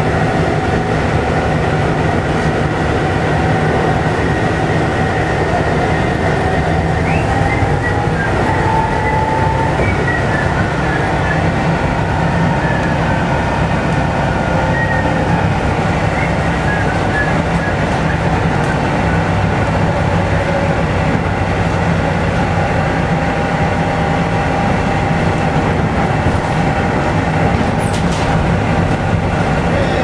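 Volvo B7TL double-decker bus on the move, heard from inside the saloon: its six-cylinder diesel engine runs steadily under a constant rumble of road and body noise, with a high drivetrain whine that rises in pitch about eight to ten seconds in.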